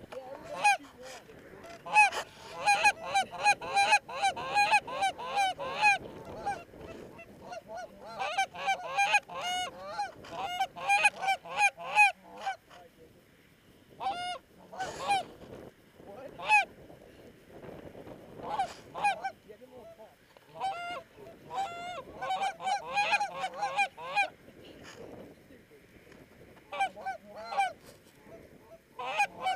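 Geese honking and clucking in rapid, overlapping runs of short calls, with brief lulls between the runs.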